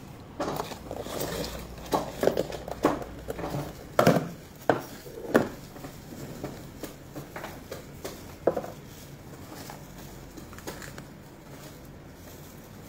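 Light clicks and taps of clear plastic food containers being handled, with a marker pen scratching on a plastic lid. Most of the taps come in the first six seconds, with one more at about eight and a half.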